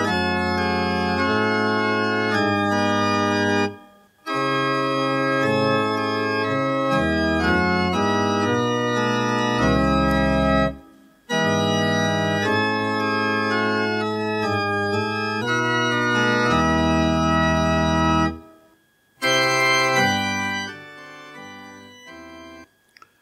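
Organ playing sustained chords with deep bass notes, in phrases separated by short pauses; the last phrase fades away near the end, followed by a faint click.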